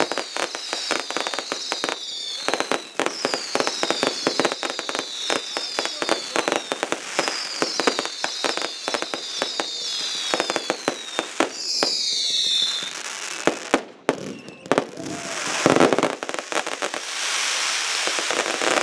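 Fireworks display: a rapid string of bangs with groups of high whistles falling in pitch, then a dense crackling shower for the last few seconds.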